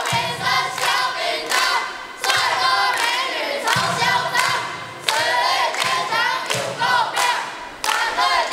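A class of children singing together in unison, in short loud phrases.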